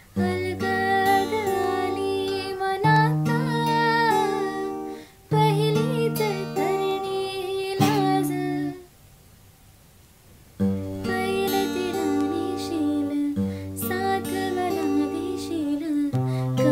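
A woman singing to her own strummed acoustic guitar. The music stops for about two seconds just past the middle, then starts again.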